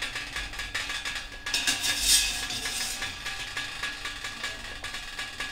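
Light clinks and scrapes of a wire spider strainer against a steel pot and a steel plate as boiled cauliflower florets are lifted from the water and tipped onto the plate. There is a short rush of noise about two seconds in.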